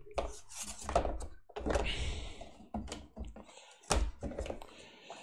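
Board game components being packed back into their cardboard box: cardboard pieces and card decks knocking into place and sliding, with stretches of rustling. A handful of dull knocks, the loudest about four seconds in.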